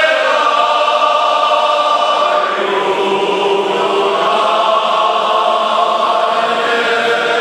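Large men's choir singing a Moravian folk song, in long held notes.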